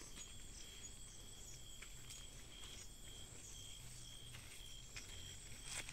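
Crickets chirping at night in a steady, pulsing high trill, faint, with a few faint snaps in between.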